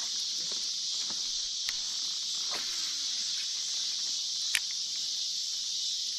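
Steady chorus of insects: an even, unbroken high buzz. A few brief sharp clicks sound over it, the loudest about four and a half seconds in.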